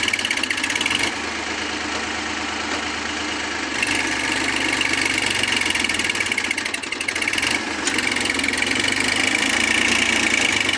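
Massey Ferguson 45-horsepower tractor's diesel engine running steadily under load as it pulls a spring-tine cultivator through soft soil, where the tractor slips a little.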